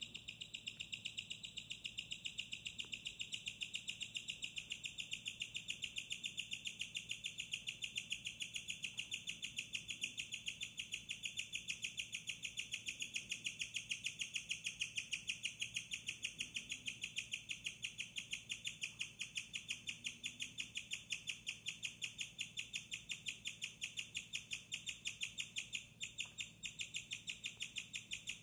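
Guinea pig chirping, a rare vocalization: an unbroken run of high, bird-like chirps repeated evenly several times a second.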